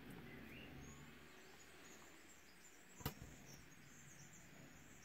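Near silence broken by one sharp click about three seconds in, with a softer one just after: a stainless-steel disc padlock and picks being set down on a rubber mat. Faint high chirping in the background.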